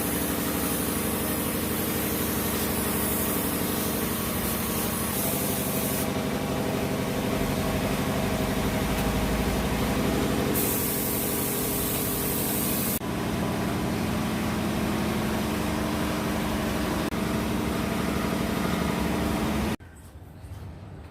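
Truck engine idling steadily, with a hiss over it that shifts abruptly a few times. The sound cuts off suddenly about a second before the end.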